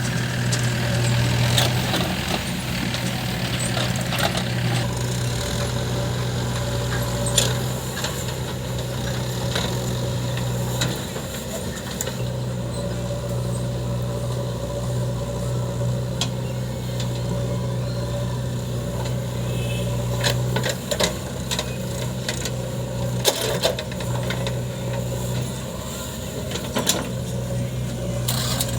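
Heavy diesel engine running steadily at a low, even pitch, with scattered sharp knocks and clanks over it.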